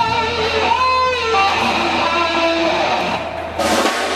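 Live rock band playing, an electric guitar leading with strummed chords over bass and drums, one held note wavering about a second in. Near the end a cymbal crash washes over the music.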